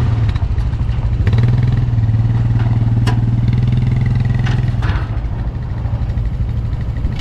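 A vehicle engine running steadily with a low drone that eases slightly toward the end, and a few light clicks and rattles.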